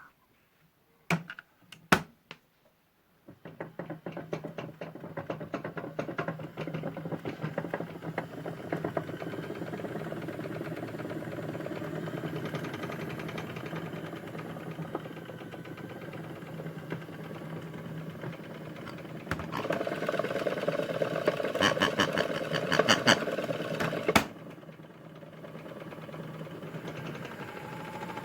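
Modified Hotpoint toy washing machine: a few clicks, then its small electric motor starts and runs with a steady hum and fast rattle. It gets louder for a few seconds near the end, then drops suddenly to a quieter hum.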